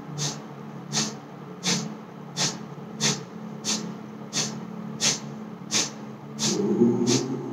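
Kapalbhati breathing: sharp, forceful exhalations through the nose, evenly repeated about three every two seconds, over a low steady hum.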